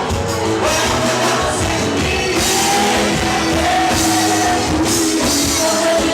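Live pagode (samba) band playing, with singing over steady percussion.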